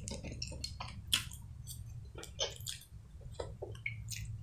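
Close-miked chewing of a soft mouthful of mashed potato: scattered wet mouth clicks and smacks, several a second, over a low steady hum.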